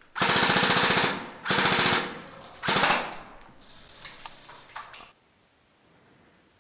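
Airsoft rifles firing full-auto in three loud bursts, the first lasting about a second, followed by a couple of seconds of fainter rapid shots that stop about five seconds in.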